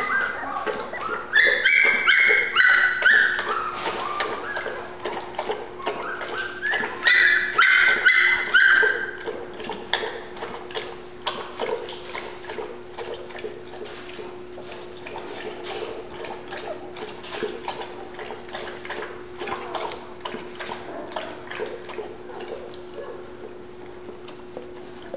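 Young golden retriever puppies whimpering and squealing in high-pitched cries, loudest in two spells early on and around eight seconds in. The cries then die down into many small clicking and smacking sounds as the puppies nurse.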